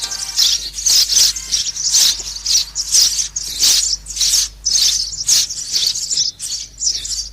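Sparrows chirping: a steady run of short, high chirps, about two to three a second.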